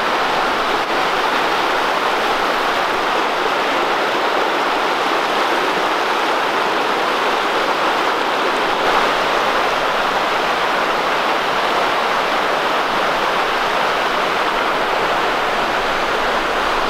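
A rocky New England brook running high and fast over rapids: a steady, loud rush of whitewater.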